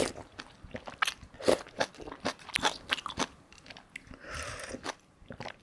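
Close-miked eating sounds: a person slurping spicy mala tang broth from a wooden spoon and chewing, with many short wet mouth clicks and smacks, and a second soft slurp about four seconds in.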